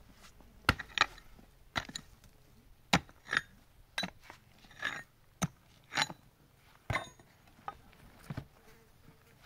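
Steel pickaxe striking and prying into a pile of rocky earth and loose stones: about a dozen sharp knocks at an uneven pace, some drawn out into short scrapes and stone rattles.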